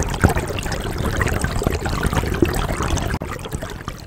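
River water trickling and lapping close to the microphone, with many small irregular splashes, fading out near the end.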